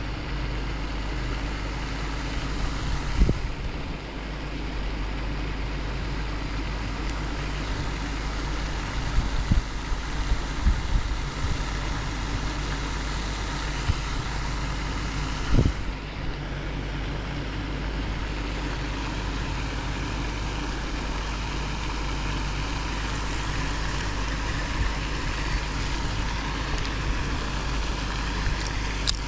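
Steady rushing background noise with a low rumble, broken by a few brief knocks.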